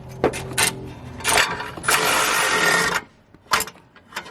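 A few metal clinks of tools on the exhaust, then a cordless impact wrench run in one burst of about a second that stops abruptly, on rusted turbo-to-downpipe nuts that keep seizing.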